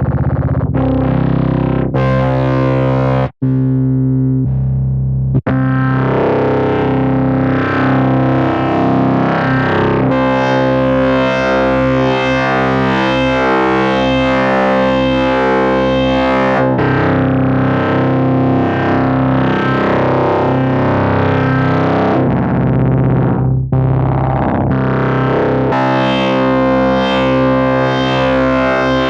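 Software synthesizer from the Arturia V Collection playing a distorted, guitar-like patch: held bass notes under changing chords, with two brief cut-offs in the first few seconds.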